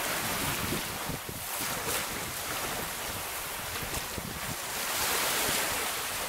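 Small sea waves breaking and washing up a sandy beach, the surf swelling and easing every second or two, with wind buffeting the microphone.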